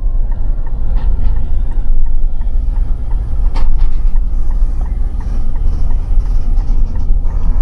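Loud, steady low vehicle rumble, with a few light clicks scattered through it.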